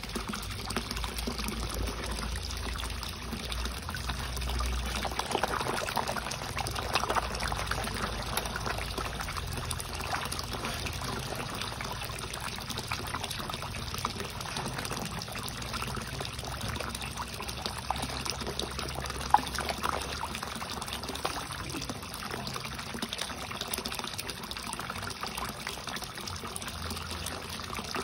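Water trickling and pouring steadily into a koi pond, with one short sharp tick about nineteen seconds in.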